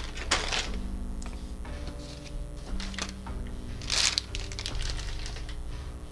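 Background music with a steady tune, over brief crinkling rustles of a plastic snack bag being handled, once near the start and again about four seconds in.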